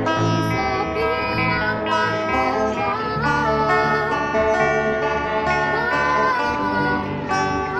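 Live band playing a pop song on electric guitars and bass with drums, and a girl singing the melody into a microphone over the amplified band.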